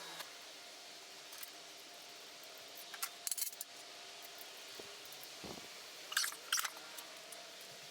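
A few light metallic clinks and taps over a faint steady hum: one about a second in, a quick cluster around three seconds, and two sharper ones a little after six seconds.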